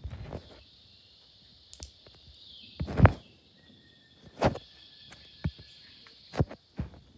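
A cat chewing on freshly caught prey: a few sharp crunches, the loudest about three seconds in, over a steady high chorus of night insects.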